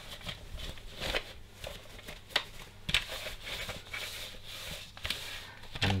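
A cloth rubbing and rustling against the clear plastic bin of a Dyson V11 vacuum as it is wiped dry, with a few short clicks of the plastic being handled.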